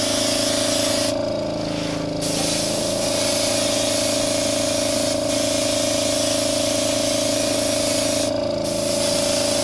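Airbrush spraying paint in a steady hiss, laying a light coat, with the trigger let off twice: for about a second early in and briefly near the end. A steady hum runs underneath throughout.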